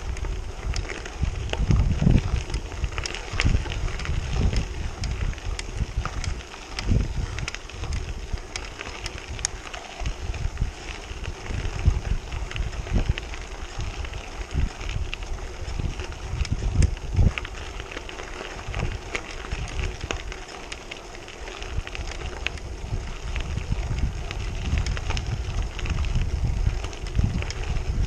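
Gravel bike tyres crunching over a loose gravel road, with small stones popping and ticking against the tyres and frame, and wind buffeting the microphone in uneven gusts.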